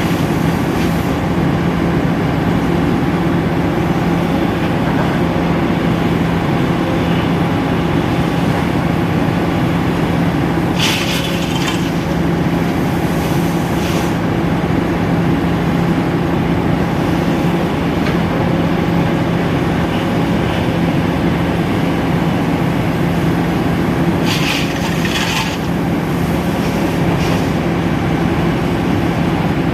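Sany excavator's diesel engine running steadily with a strong low hum. Twice, about a third of the way in and again near the end, a brief hissing, scraping noise rises over it.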